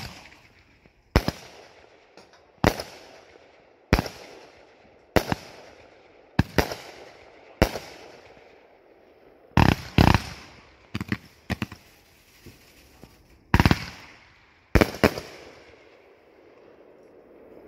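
A Raccoon Fireworks Cluster Bomb 40-shot firework cake firing shot after shot: sharp bangs about every second and a half, a few coming in quick pairs, each with a short fading tail.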